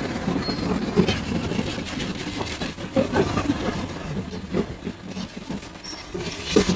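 Street background dominated by a vehicle engine running at idle, with a few short knocks of utensils or food being set down on a steel counter.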